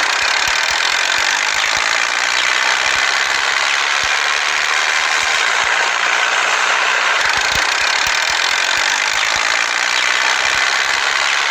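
Steady mechanical whirring noise from a small motor, running evenly throughout, with a few faint clicks.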